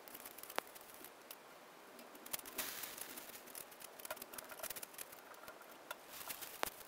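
Faint shovelling of stone into a wheelbarrow: scattered scrapes and sharp clicks, with a brief gritty rush a little before halfway.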